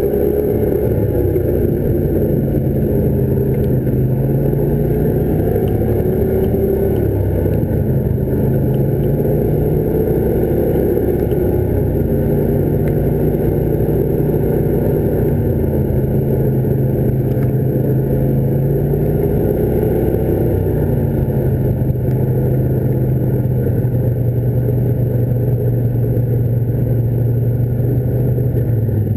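Quad bike (ATV) engine running steadily at cruising speed, close up from the rider's own machine, its pitch rising and falling gently with the throttle.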